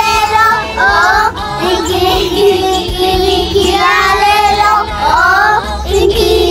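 Children singing a song over backing music.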